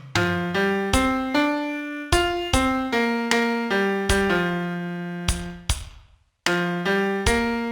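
Piano playing a single-note melody line, notes struck roughly twice a second and each left to ring and fade. There is a brief break in the melody about six seconds in.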